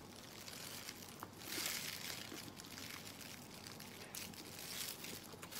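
Faint wet slurping and sucking as a sauce-coated whole octopus is bitten and eaten.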